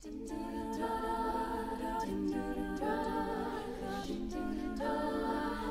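All-female a cappella group singing the backing chords of a song's intro in close harmony, the chords changing every second or so, with a few crisp percussive accents.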